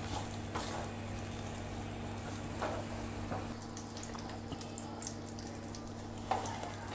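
Spatula stirring and scraping a thick ghee-rich Mysore pak mixture around a nonstick pan, with soft squelches and a faint sizzle of hot ghee, over a steady low hum. The mixture is fully cooked, gathering into one mass and letting its ghee rise to the surface.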